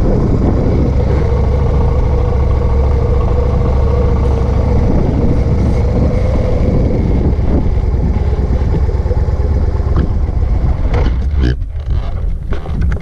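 Motorcycle engine running under way, a steady low rumble mixed with wind rush. About eleven seconds in the engine sound drops away, and wind buffeting the microphone and scattered knocks take over.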